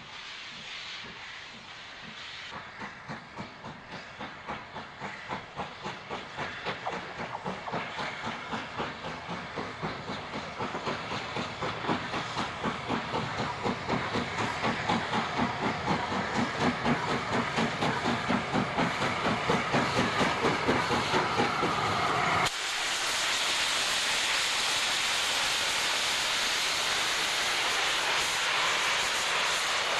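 Southern Railway S15 class 4-6-0 steam locomotive pulling away with a train, its two-cylinder exhaust beating about twice a second amid hissing steam, the beats growing louder and slightly quicker as it gathers speed and comes closer. About two-thirds of the way through the beat gives way abruptly to a steady, loud rushing noise as the engine passes close by.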